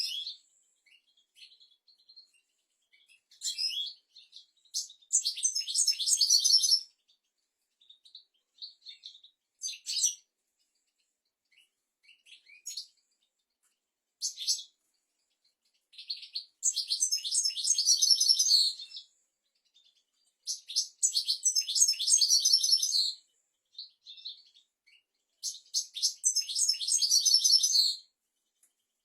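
European goldfinch song: four long, fast twittering phrases of two to three seconds each, with short single call notes between them.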